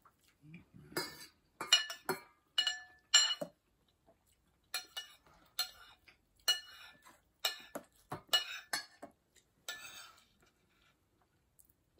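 Metal cutlery clinking and scraping against a plate while eating: a run of short, ringing clinks, loudest about two to three seconds in, then a second, softer cluster.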